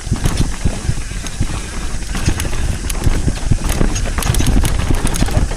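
Mountain bike rolling down a dirt trail, its chain and frame rattling in a quick, irregular run of knocks over bumps and roots, with wind rumbling on the microphone.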